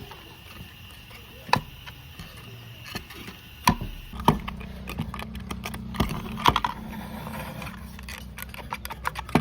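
Scattered sharp knocks and clicks of hard objects being handled, with a low steady hum starting about four seconds in.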